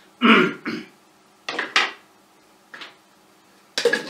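A ladle and glass jars clattering as the vinegar mother is lifted out of a large jar of pomegranate vinegar. Five or so short, separate knocks and clinks, the loudest about a quarter second in.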